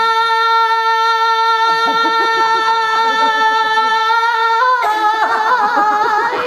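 A woman singing one long, held note, steady in pitch, then leaping to a higher note with a wavering vibrato near the end.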